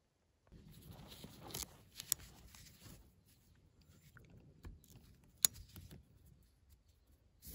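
Rustling and scraping as a hammock and its straps are handled and hung, with a few sharp clicks, the sharpest about five and a half seconds in.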